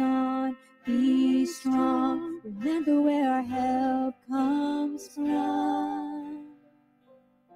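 Slow congregational worship song: a voice sings held, wavering phrases over soft band accompaniment. The music drops away about six and a half seconds in.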